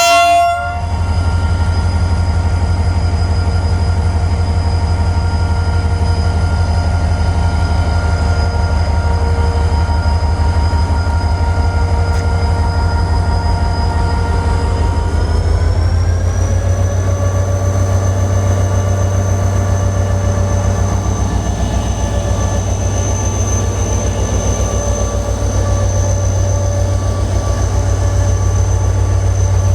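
HGMU-30 diesel-electric locomotive pulling away. Its horn cuts off about half a second in, and then the diesel engine runs with a steady low rumble and a set of whining tones. About halfway through, the whine and engine note rise in pitch and hold higher as the locomotive throttles up.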